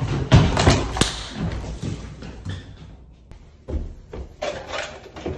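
Thuds and footfalls of people running across a hard floor, loudest in the first second. Then a door is thumped and pushed open.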